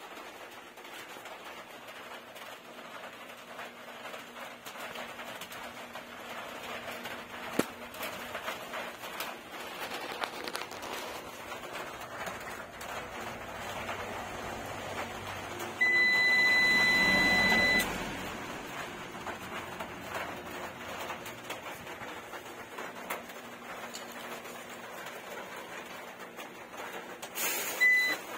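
UPS beeper sounding as the unit is switched on: one steady high-pitched beep of about two seconds roughly halfway through, and a second, short beep of the same pitch near the end, over a faint steady hiss.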